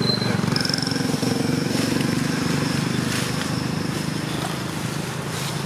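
A motor engine running steadily, a low rumble, with a faint thin high tone held for about four seconds over it.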